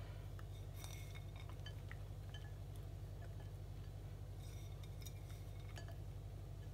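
Faint, scattered light clicks and clinks as grated cheddar is sprinkled by hand from a plate over pasta in a ceramic baking dish, over a steady low hum.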